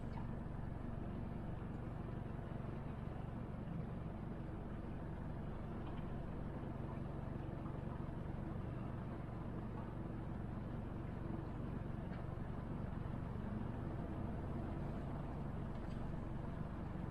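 Motorboat engine running steadily at a constant speed, a low even hum with the wash of the hull through the water.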